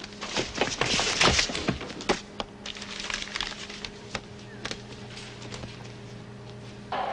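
A quick flurry of sharp clicks and cracks in the first couple of seconds, thinning to scattered single clicks, over a steady low hum.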